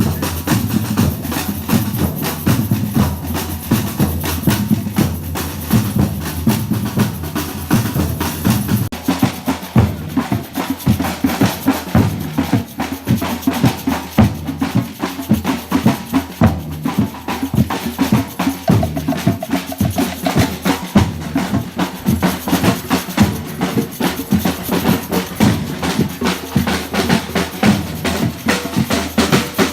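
Batucada percussion ensemble playing a fast samba rhythm: deep bass drums under dense, rapid drumming.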